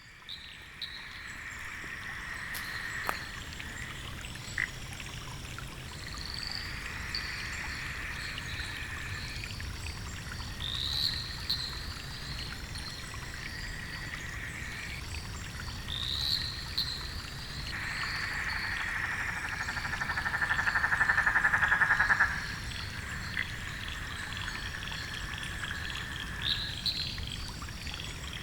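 A chorus of Australian frogs calling, with an even pulsing chorus underneath and short rising calls every few seconds. About two-thirds of the way in, a loud, fast-pulsed trill lasts about four seconds.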